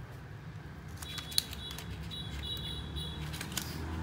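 Light clicks and ticks of a plastic opening pick prying along the edge of a Samsung Galaxy Tab E, working the glued screen layers apart. There is one sharp click about a second and a half in, and a faint high squeak through the middle.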